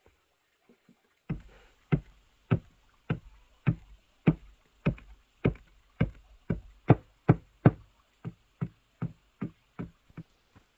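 A hand tool striking wood or bamboo again and again, about twenty blows at roughly two a second. The blows come faster for a while in the middle and stop shortly before the end.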